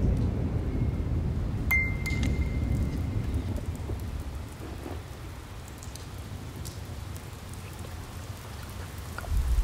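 Storm sound effects: a low rumble of thunder dies away over the first few seconds, with scattered raindrop ticks. A single short metallic ping sounds about two seconds in.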